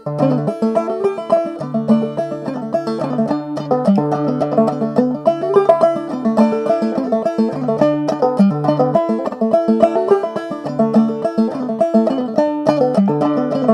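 Banjo played clawhammer style: a fast Irish reel melody in a quick, even stream of plucked notes over a ringing low drone note.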